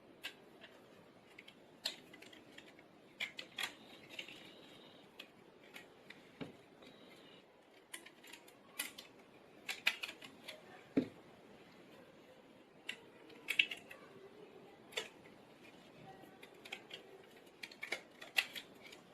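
Irregular light clicks and taps from handling a smartphone and rubber bands on a workbench, with small clusters of clicks, as bands are fitted around the phone to clamp its freshly glued replacement display while the glue sets.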